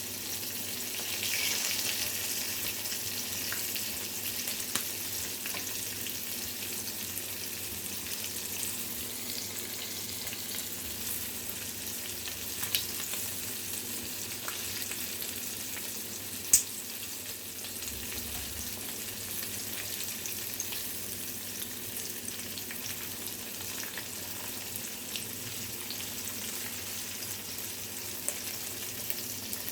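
Shrimp and fish fillets frying in sunflower oil, nearly golden brown: a steady sizzle with scattered sharp pops, the loudest about halfway through.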